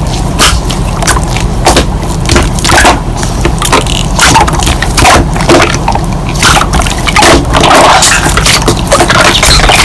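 Slime being squeezed and pressed by hand, giving irregular sticky clicks and crackling pops.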